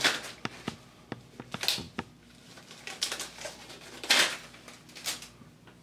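Rustling and scattered small clicks of surgical gloves and supplies being handled, with the loudest rustle about four seconds in as a glove is peeled off the hand.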